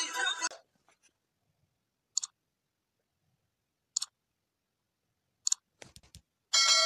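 Music cuts off about half a second in, then mouse-click sound effects for a subscribe-button animation: three short double clicks about a second and a half apart, a few faint ticks, and a notification bell chime starting near the end.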